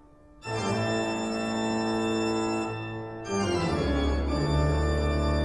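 Organ playing sustained chords. The first chord comes in about half a second in, and the chord changes about three seconds in, with deep bass notes under it.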